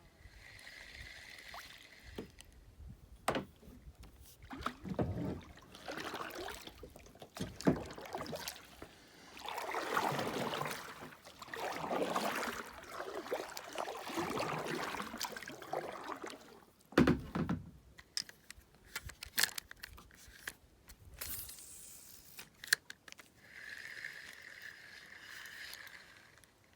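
Kayak on the water: irregular swishing and splashing of water, loudest in the middle stretch, with several sharp knocks along the way.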